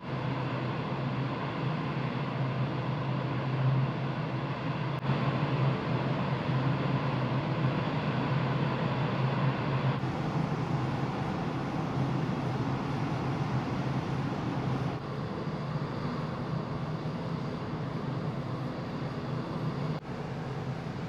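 Large ferry underway: a steady low engine hum under a wash of rushing noise, changing abruptly about every five seconds.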